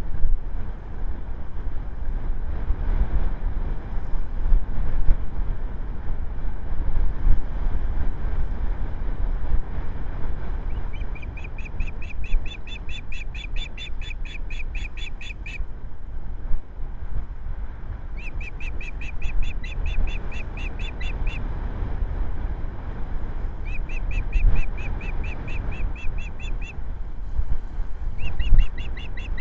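Wind rumbling on the microphone throughout. About a third of the way in an osprey starts calling: four bouts of a few seconds each of a rapid, evenly repeated high-pitched note.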